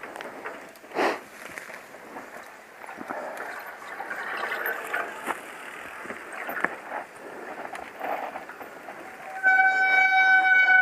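Downhill mountain bike running over a rough dirt trail, with tyre rumble, rattling and wind noise and a sharp knock about a second in. Near the end a loud, steady, high-pitched squeal of the disc brakes as the bike slows to a stop.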